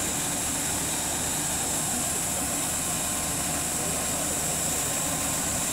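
Steady jet whine and rumble from a parked Airbus A380: a high, thin tone over a low rumble that does not change.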